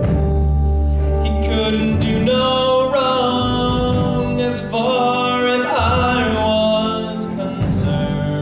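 Music from a musical-theatre ballad: instrumental accompaniment with held notes over a low bass.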